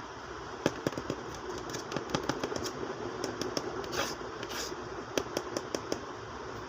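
Irregular light clicks and taps, about a dozen and a half, over a steady background hum, with two brief rustles a little past halfway, like objects being handled close to the microphone.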